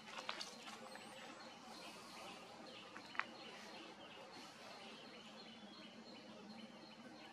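Faint outdoor ambience, a steady hiss of background noise. A short high bird chirp comes about a second in, and a single sharp click a little after three seconds.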